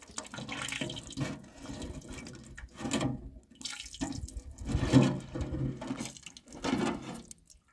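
Liquid sloshing and splashing as a long wooden paddle stirs it in a square metal tin over a fire, in uneven strokes a second or two apart, the loudest about five seconds in.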